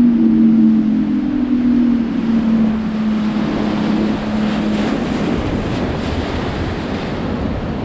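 Outboard motor running, its pitch sinking slowly as it throttles back and dies away about five seconds in. Under it, and then alone, the steady rush of a waterfall.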